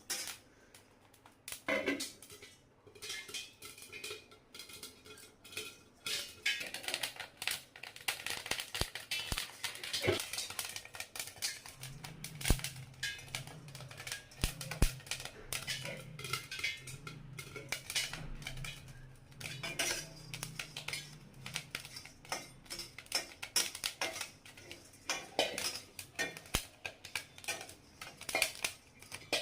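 Many small sharp pops and clicks at an irregular pace, with metal clinking against a pan: small grains popping as they roast in a hot pan.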